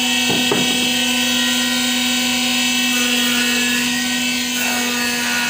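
Loud, steady drone of an electric motor in a woodworking machine, a strong hum topped by a high whine. A couple of wooden knocks come about half a second in.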